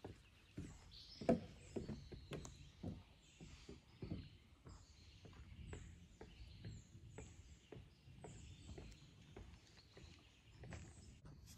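Footsteps and trekking-pole taps on wooden stair treads, a run of knocks loudest about a second in that grow fainter and sparser as the climber moves away up the steps. Small birds chirp over it, short falling calls repeated every second or so.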